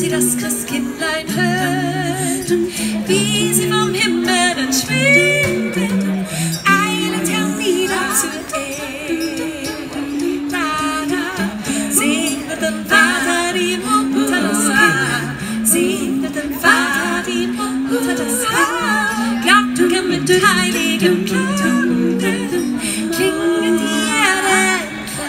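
Four women's voices singing in close harmony a cappella, with small handbells rung along with the song at intervals.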